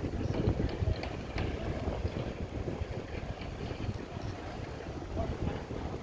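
Wind buffeting the microphone, an uneven low rumble, as the camera is carried along outdoors.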